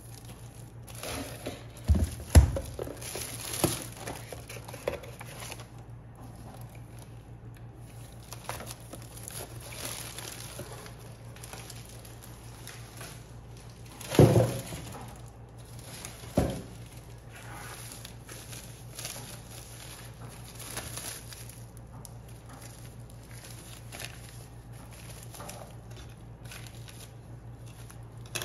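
Hands handling iPad Pro packaging: crinkling and rustling of the wrapping, with a few sharp knocks and thumps. The knocks come in a cluster about two to four seconds in and twice more around fourteen and sixteen seconds in, over a steady low hum.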